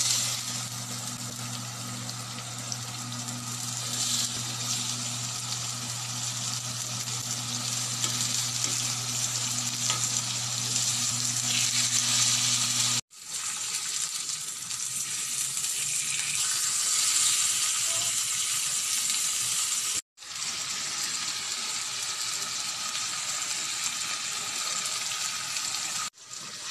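Pork steaks sizzling as they fry in oil in a grill pan, a steady hiss with a low hum beneath it during the first half. The sizzle breaks off abruptly twice and starts again.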